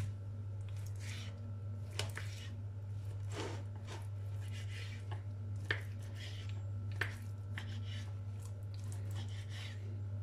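Kitchen knife slicing raw chicken breast on a wooden cutting board: soft cutting and scraping, with a few sharp knocks of the blade on the board. A steady low hum runs underneath.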